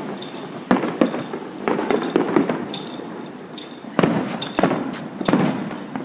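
Fireworks going off: a string of sharp bangs at irregular intervals, about eight in six seconds, some followed by a short rumble.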